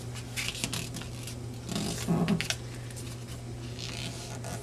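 A sheet of origami paper being handled and folded, with soft rustling and crinkling in short bursts as a corner is brought down and creased. A brief low sound comes about two seconds in, at the loudest moment.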